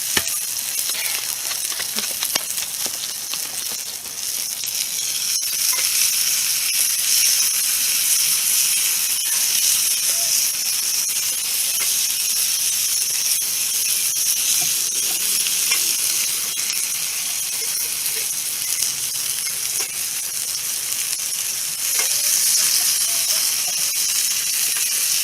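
Burger patty sizzling in a mess-kit frying pan over a campfire: a steady hiss of frying with scattered small pops and crackles.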